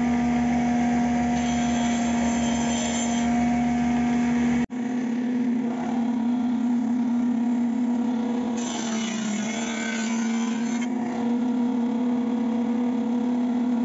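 A woodworking machine (jointer with a saw blade) running with a steady hum. For about two seconds in the middle, a louder cutting noise as wood passes through it.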